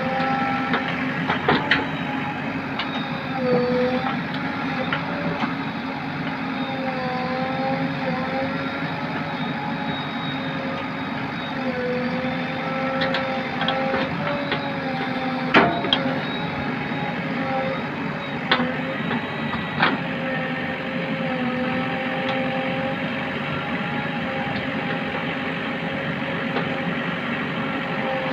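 JCB backhoe loader's diesel engine running steadily under load, its pitch wavering slightly, with a few sharp knocks from the working machine.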